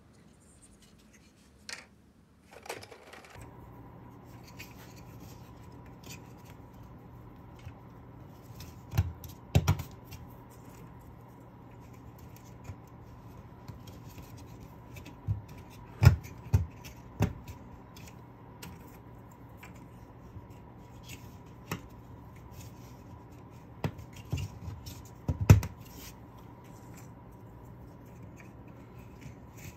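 Small walnut kumiko pieces being fitted by hand into a hexagonal lattice panel: light wooden clicks, taps and scraping, with a few louder snaps as pieces seat. A steady hum runs underneath from about three seconds in.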